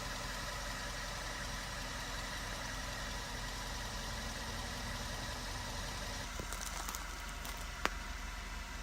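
2012 Suzuki Swift Sport's 1.6-litre four-cylinder engine and CVT running steadily, carrying the abnormal noise from the CVT transmission. A sharp click a little before the end.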